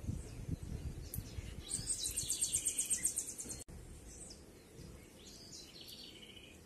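Songbirds: a rapid high trill lasting about two seconds near the middle, then scattered short high chirps. Under the first part there is a low rumble.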